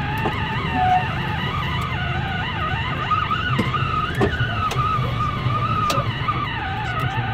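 Inside a lorry cab in a sandstorm: the steady low rumble of the truck's engine and tyres, with storm wind whistling around the cab in wavering tones that slowly rise and fall, and scattered sharp ticks of grit hitting the windscreen.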